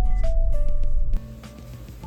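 Background music: a simple melody of held notes. A loud low rumble runs underneath and cuts off abruptly about a second in, leaving only the quieter music.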